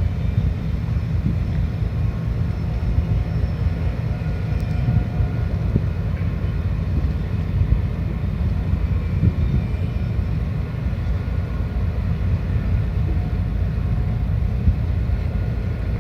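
Car ferry's diesel engines rumbling steadily while manoeuvring in harbour, with a faint steady whine above the rumble.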